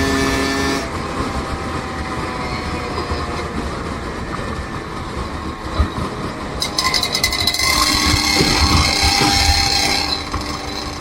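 Road noise of a moving vehicle: a continuous rumble and rattle. A steady engine tone fades about a second in, and a brighter, rapidly clicking rattle joins about two-thirds through.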